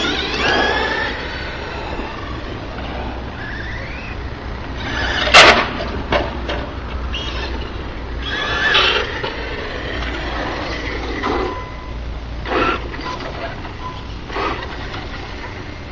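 Duratrax Evader EXT2 RC truck's 3930kv brushless motor whining, its pitch sliding up and down as the truck speeds up and slows. A sharp loud crack comes about five seconds in, and shorter loud bursts follow several times.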